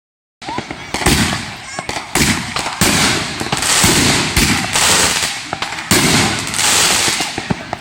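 Consumer fireworks going off: several sharp bangs, with long stretches of hissing and crackling between them.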